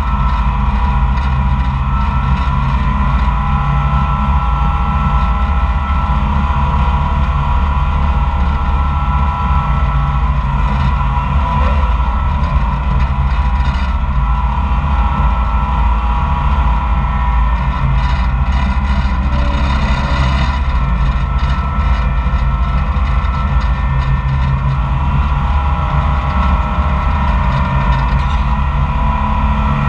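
Koehring 440 dragline's engine running steadily and loudly, heard close from the operator's seat as it works the cables to drag the bucket through the water and hoist it.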